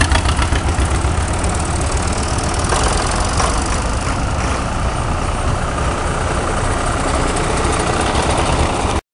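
Farm tractor engines running as a line of tractors drives past: a loud, steady, deep engine drone that cuts off abruptly near the end.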